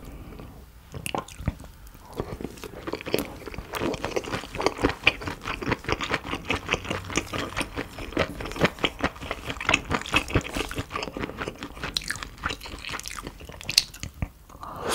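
Close-miked chewing of a mouthful of food, a fast run of many small crunching clicks that starts about a second or two in and keeps on.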